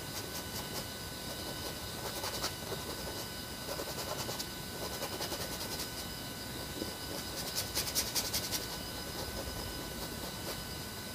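Oil-paint brush scratching and dabbing against a large canvas in quick strokes, in two short spells, about two seconds in and again around eight seconds, over a steady hiss with a faint electronic whine.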